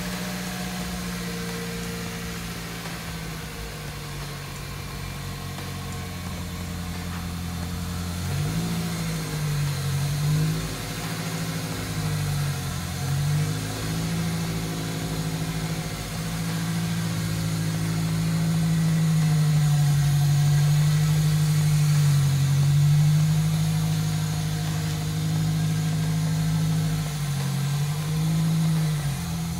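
A 2000 Toyota Celica GT's 1.8-litre four-cylinder engine running. It idles, is blipped several times about a third of the way in and again near the end so its pitch swings up and down, and runs louder and steady through the middle.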